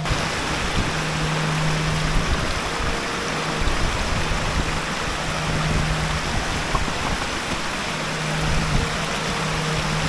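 Stream water cascading over rocks in a gorge: a steady, loud rush of running water with some irregular low rumbling.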